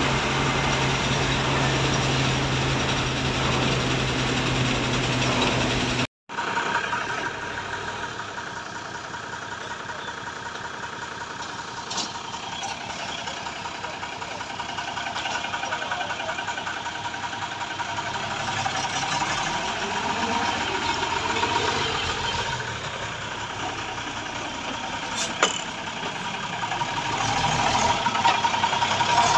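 Diesel truck engines running: first a steady hum heard from inside the cab on the move, then, after an abrupt cut, engines idling in the open, with the pitch gliding up and down for a few seconds in the middle. Near the end the old Mercedes-Benz tow truck's engine comes up louder.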